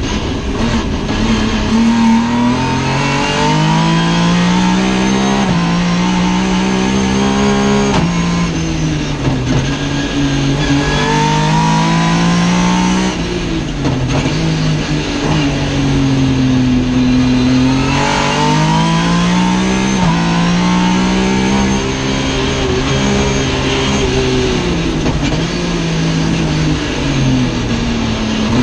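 Race car engine heard from inside the stripped, caged cockpit, revving hard through the gears: the pitch climbs, drops sharply at each upshift, sags as the car slows, then climbs again under acceleration.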